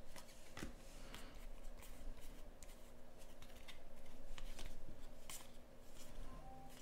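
Trading cards being slid one at a time off a hand-held stack, making soft paper-on-card rustles and light, irregular clicks.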